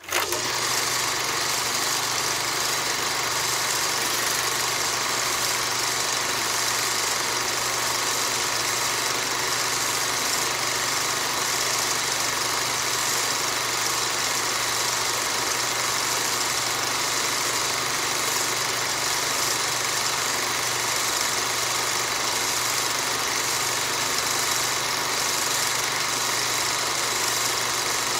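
Old cinema film projector running steadily, an even mechanical whir with a low hum underneath, starting abruptly.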